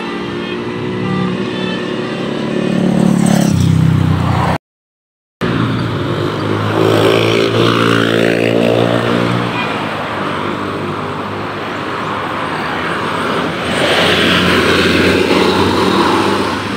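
Large road vehicles running and passing by, their engines loud and droning, with a brief cut to silence about five seconds in.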